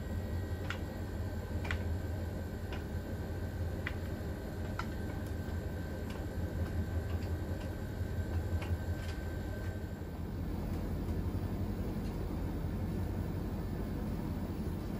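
Siemens iQ700 front-loading washing machine running mid-cycle: a steady low motor hum with light clicks about once a second. A faint high tone stops about ten seconds in, and the sound changes there.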